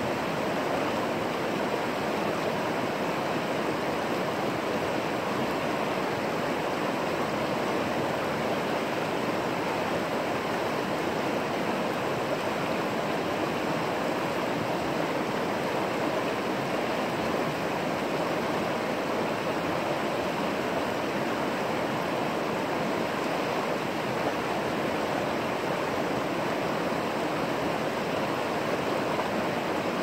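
Creek water flowing: a steady, unbroken rush of running water.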